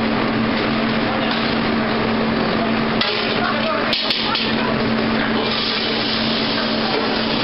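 Oil hissing in a smoking-hot wok over a high gas flame, over the steady hum of a commercial kitchen. A couple of metal clinks about four seconds in, then a louder sizzle as sliced onions and tomatoes go into the hot oil.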